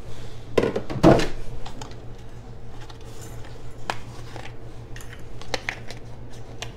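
Kitchen clatter: a few scattered knocks and clinks of utensils and containers against a stainless steel pot and the counter, the loudest about a second in, over a steady low hum.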